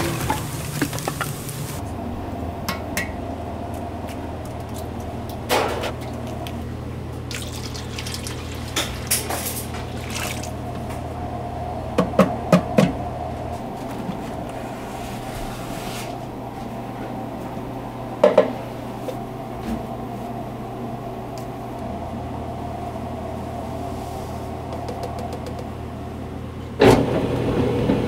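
Kitchen sounds over a steady low hum: liquid poured into a steel mixer bowl, with scattered clinks and knocks. Near the end a large dough mixer with a dough hook starts up and keeps running, louder than anything before it.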